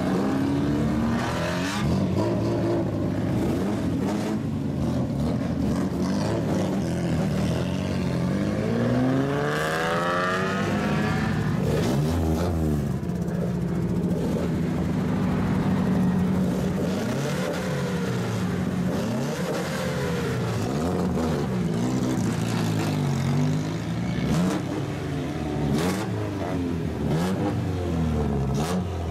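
Lowered old Japanese cars with straight-pipe exhausts revving and pulling away one after another, the engine notes rising and falling in repeated blips. One rev climbs sharply about ten seconds in.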